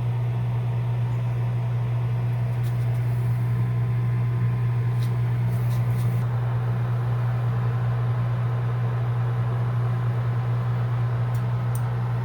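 Gas furnace running: a steady low motor hum, with a few faint clicks.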